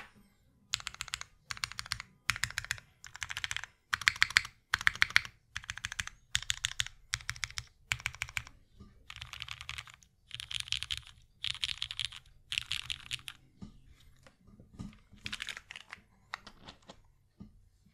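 Typing on a mechanical keyboard: a Kohaku gasket-mount board with an aluminium plate, lubed Cherry MX Black linear switches and GMK doubleshot ABS keycaps, pressed in quick bursts of keystrokes that thin to scattered single presses near the end.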